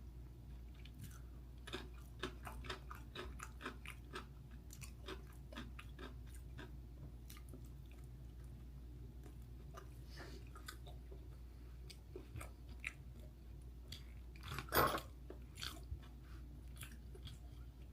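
Close-up mouth sounds of a person chewing a dumpling: soft wet clicks and smacks, thick for several seconds, then sparser, with one louder smack or slurp about fifteen seconds in.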